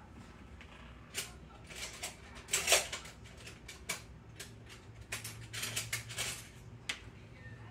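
Scattered kitchen clatter and rustling of things being handled, with one louder knock about two and a half seconds in and a run of rustles near the end, over a faint low steady hum.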